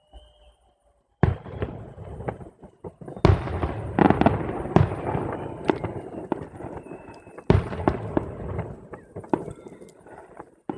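Fireworks display: sharp bangs about a second in, at about three seconds and at about seven and a half seconds, each followed by dense crackling.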